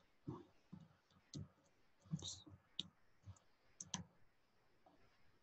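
Faint computer keyboard typing: a dozen or so short, irregular key clicks.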